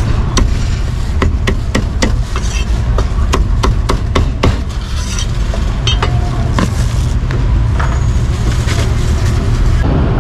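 Cleaver chopping meat on a chopping block: quick sharp chops about three a second for the first half, then slower and more scattered. A steady low rumble of street traffic runs underneath.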